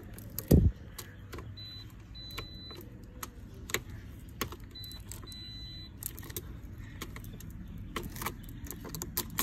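Car key being worked in the ignition: a heavy thump about half a second in, then scattered clicks and keys jingling on their ring, with no engine cranking. The car is not responding to the key.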